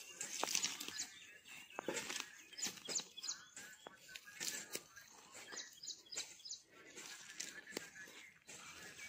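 Irregular rustling and crackling of dry grass and weeds, with a few short bird chirps in the background.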